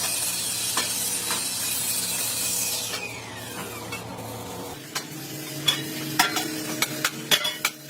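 A power tool runs with a loud hiss, then winds down about three seconds in, its pitch falling as it spins to a stop. Sharp irregular taps follow near the end, metal tools knocking on the work.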